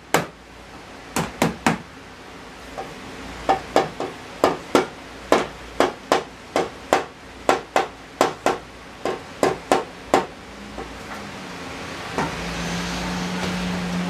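Rubber mallet knocking the glued rails and stiles of a wooden raised-panel door frame together: about twenty sharp blows, often in quick pairs, over the first ten seconds. A steady low hum starts about twelve seconds in.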